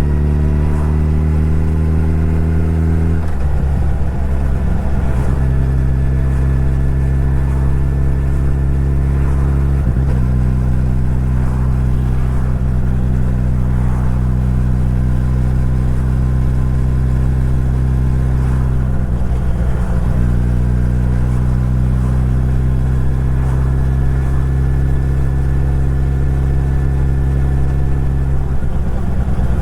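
Suzuki Hayabusa's inline-four engine running under way as the motorcycle is ridden. The pitch climbs slowly, then steps to a new level with a brief rough break about four times, at gear changes.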